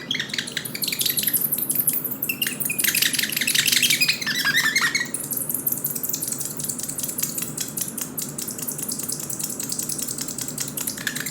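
A piece of polystyrene foam rubbed against a small mirror, making rapid high-pitched squeaks that imitate birds chirping. The squeaks come in dense quick series throughout, with a few higher, more tuneful chirps in the first half.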